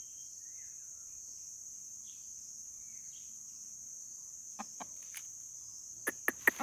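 Steady high-pitched insect chorus, with a few faint bird chirps. Near the end, dry leaves crackle in a quick run of sharp clicks.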